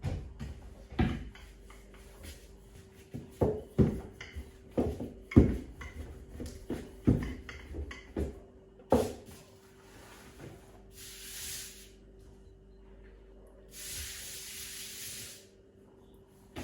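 A run of irregular knocks and thumps, then two bursts of hiss about a second or so long, over a faint steady hum.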